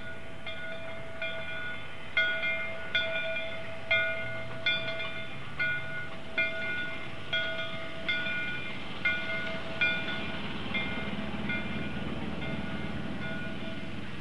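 A railroad bell ringing in even strokes, a little over one a second, each stroke ringing on, the strokes fading in the last few seconds as a low rumble rises.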